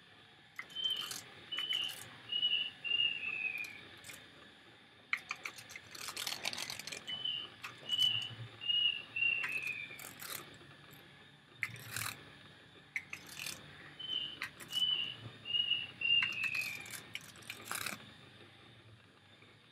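A bird repeating a short whistled phrase three times, about six seconds apart: three quick high notes and a longer last note that slides down in pitch. Scattered sharp taps and clicks come between the phrases, thickest about six seconds in, over a faint steady hiss.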